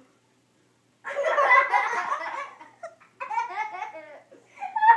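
Young children laughing hard in three bouts, starting about a second in.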